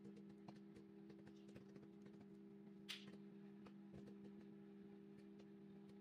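Faint, steady hum of a microwave oven running, with scattered faint pops of microwave popcorn in the bag and one sharper pop about three seconds in, the popping slowing in the last seconds of the cycle.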